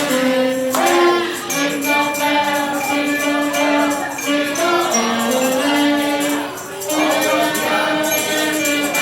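Music from a song: a held melody line over a steady beat, with no words.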